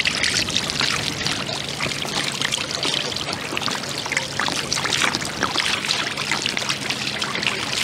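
Fresh water poured from a plastic bottle over an outboard motor's powerhead, splashing and trickling steadily. This is the rinse that clears salt water from the motor after it went under the sea.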